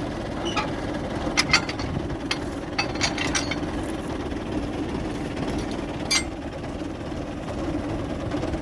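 Tractor engine idling steadily, with a few short sharp metal clinks, about a second and a half in, around three seconds and about six seconds in, as the straw cutter's PTO drive shaft and hitch are fitted to the tractor.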